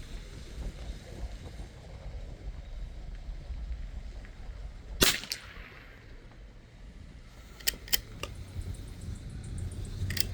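A single shot from a bolt-action Ruger American .22 LR rifle firing CCI Standard ammunition, about halfway through, followed a few seconds later by a few sharp clicks, likely the bolt being worked to chamber the next round.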